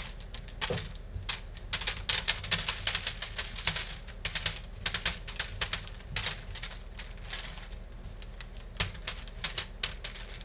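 Small corn-dough boilie balls being swept down a ribbed rolling table and dropping onto wax paper, making rapid, irregular clicks and taps in clusters, with a hand brushing across the ridges.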